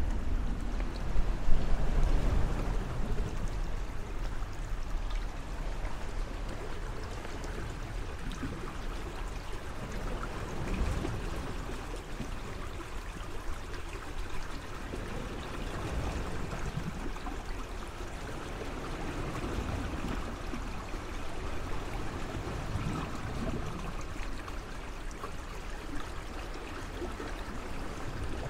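Moving water washing and trickling steadily, with a heavier low rumble in the first few seconds.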